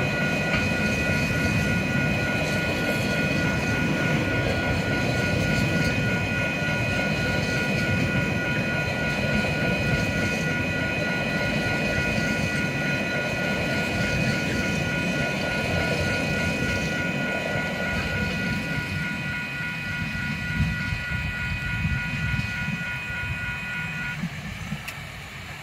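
A TasRail freight train's wagons rumbling and clattering steadily over the level crossing, the rumble fading over the last several seconds as the end of the train passes. Over it a steady high ringing of the crossing's warning bells runs until it stops shortly before the end.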